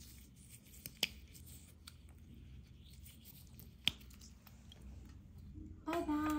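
Faint wet squishing and crackling of crumbled slate pieces being pressed in a watery paste by fingers, with a couple of sharp clicks. Near the end a steady held tone starts.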